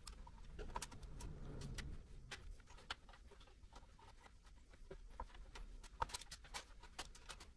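Faint, scattered clicks and taps as an Nvidia GT 1030 graphics card's bracket and edge connector knock against the case and motherboard while it is pushed toward a PCIe slot, with a low rumble of handling in the first two seconds. The card will not seat because its bent bracket hits the motherboard.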